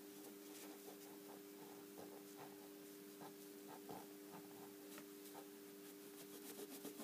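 Faint soft scratching of a cotton swab rubbing along the edge of a painted fingernail, cleaning polish from around the cuticle, in short irregular strokes. A steady low electrical hum runs underneath.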